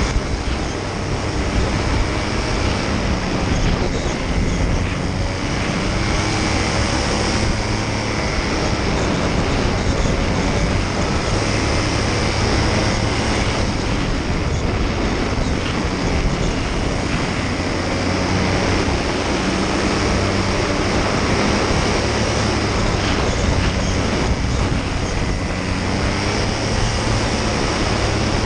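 Paramotor's engine and propeller running steadily in flight at a constant drone, with rushing air.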